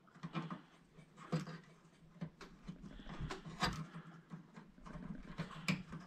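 Faint, irregular clicks and rustling of wiring being handled as the wire connectors are pushed back onto a microwave's door-switch terminals, with a few sharper clicks among them.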